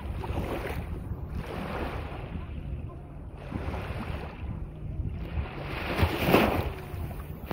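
Small sea waves lapping and breaking at the water's edge, with wind rumbling on the microphone; one wave breaks louder about six seconds in.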